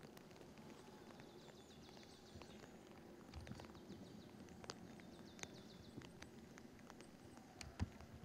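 Quiet woodland ambience: scattered faint crackles and ticks, a high bird trill heard twice, and a single thump near the end.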